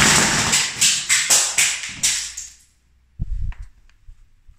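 Plastic puzzle cubes clattering as a stacked tower of them is swept over, many cubes knocking against the glass table and each other before dying away after about two and a half seconds. A short low thump follows, then a few faint clicks.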